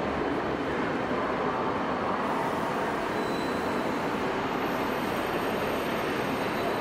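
TGV high-speed train rolling slowly into a terminus platform: a steady rumble, with a faint high whine about halfway through.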